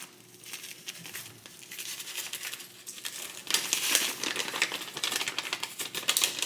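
Food packaging crinkling and rustling, with a rapid run of light clicks and taps that grows busier about halfway through.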